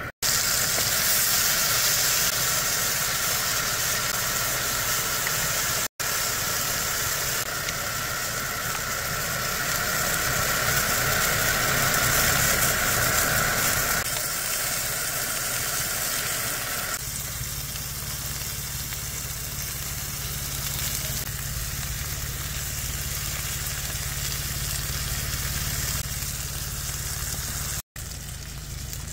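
Pork belly and vegetables sizzling on a hot round griddle pan, a steady frying hiss.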